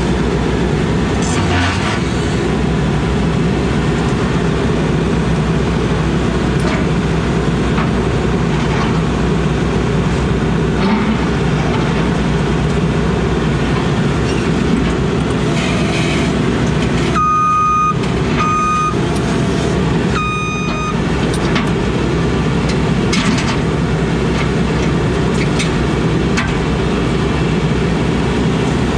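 Case CX80 excavator's diesel engine running steadily under work. Near the end, an alarm beeps three short times, typical of a travel or backup alarm.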